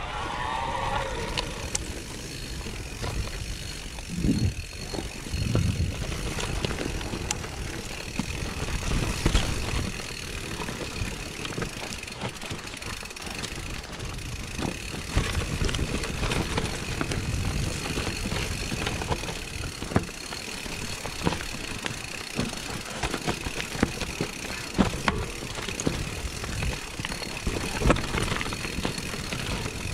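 Mountain bike riding down a rough, rocky trail: tyres rolling and crunching over stones and dirt, with frequent sharp knocks and rattles from the bike as it hits bumps.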